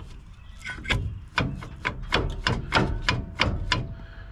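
A quick series of knocks, about three a second, with a faint steady tone underneath in the second half.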